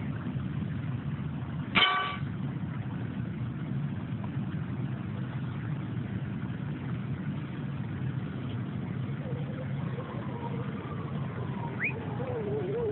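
Fire engine's diesel running steadily at idle, a low drone, with one short loud horn blast about two seconds in. Faint voices come in near the end.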